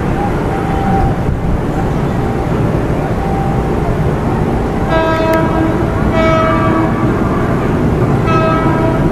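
KRL commuter electric train (ex-JR 205 series) running slowly towards the camera with a steady rumble, sounding its horn in three short blasts: about five seconds in, just after six seconds, and again near the end.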